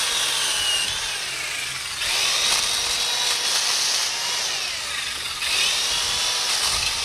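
Black & Decker Alligator corded electric lopper's small chainsaw chain running and cutting through tree limbs. The motor whine sags in pitch as it bites into the wood, then jumps back up about two seconds in and again near the end of the cut.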